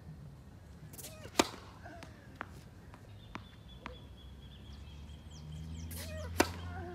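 Tennis ball struck hard with a racket, twice, about five seconds apart; the second hit is a serve. Between the hits come a few light taps of the ball bounced on the hard court before the serve.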